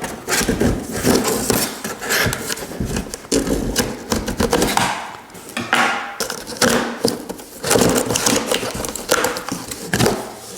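A cardboard shipping box being cut and opened with a knife: irregular scraping and tearing of tape and cardboard, with frequent knocks of the cardboard being handled.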